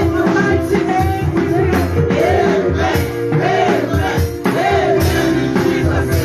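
Worship music with held keyboard chords and a steady beat, with voices singing over it.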